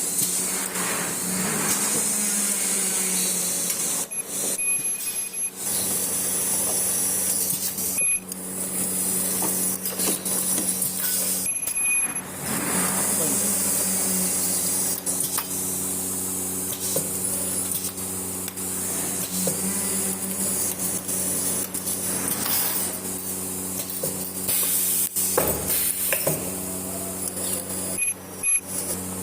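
Bag-filter production machinery running with a steady low hum and a constant high whine, the sound changing abruptly several times.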